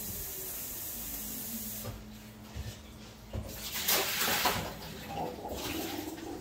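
Kitchen tap running into the sink as dishes and a metal pot are rinsed, loudest about four seconds in, with light knocks of the pot against the sink.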